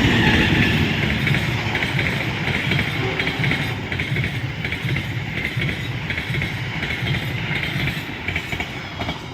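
Long-distance express passenger train's coaches rushing through the station at speed: a steady roar of wheels on rail with a fast clatter, slowly fading toward the end as the train goes by.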